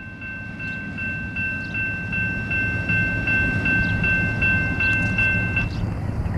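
Railroad crossing bell ringing in even, rapid strokes about two and a half times a second, over a low rumble. The bell stops near the end as the train clears the crossing and the gates begin to lift.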